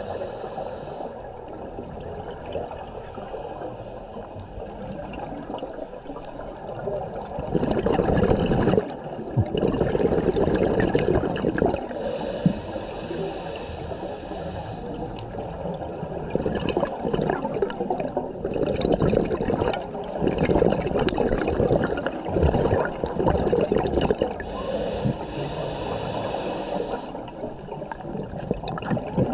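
Scuba diver breathing through a regulator underwater: three short, high hissing inhales, each followed by a long rush of exhaled bubbles.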